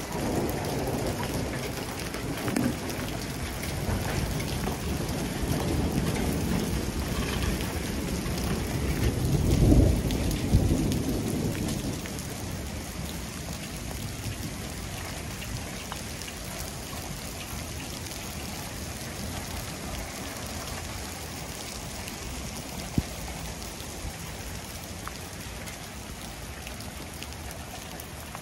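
Hailstorm rain and hail falling steadily. A low rumble of thunder builds and fades about a third of the way in, the loudest part.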